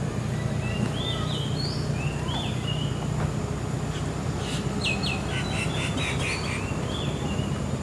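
Birds calling: short whistled, gliding notes in the first few seconds, then a quick run of chirps over the second half, over a steady low background hum.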